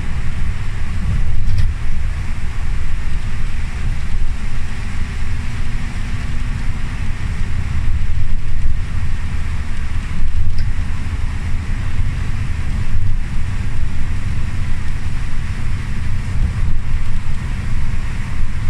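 Steady low rumble of a bus's engine and tyres at highway speed, heard inside the cabin, with an even hiss of tyres on the rain-soaked road.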